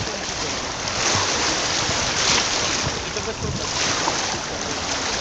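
Steady rushing of wind and sea water, swelling and easing every second or two, with wind buffeting the microphone.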